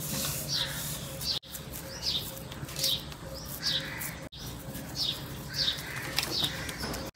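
Small birds chirping in the background: repeated short, high, falling chirps, a couple a second, over a faint steady low hum.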